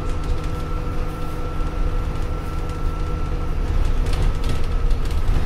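Dennis Trident Optare Olympus double-decker bus on the move, heard from the passenger deck: a low engine rumble with a steady whine. About four seconds in it grows louder, with rattling.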